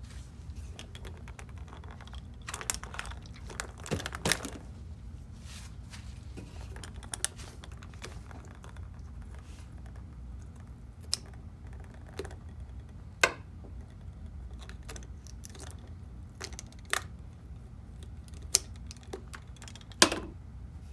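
Scattered sharp clicks and crinkly crackles from slime-filled stress balls being cut open, each click standing out above a steady low hum.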